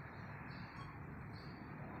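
Squirrel giving short, high-pitched chirping calls, three in quick succession, faint against a steady outdoor hiss.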